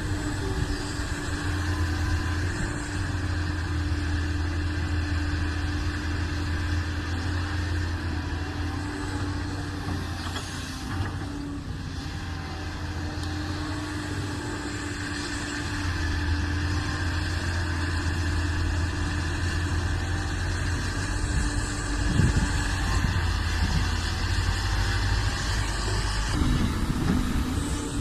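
Doosan hydraulic excavator's diesel engine running steadily under work as it grades soil, with a constant low hum and a steady higher tone. A couple of brief knocks come near the end.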